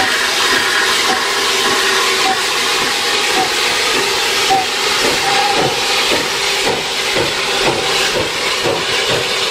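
Hunslet Austerity 0-6-0 saddle tank steam locomotive pulling away with its cylinder drain cocks open: a loud, steady hiss of steam. From about halfway, regular exhaust beats at about three a second come through the hiss.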